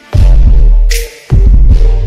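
Bass-boosted, slowed electronic music with reverb: two heavy deep-bass hits a little over a second apart, with a bright snare-like hit between them.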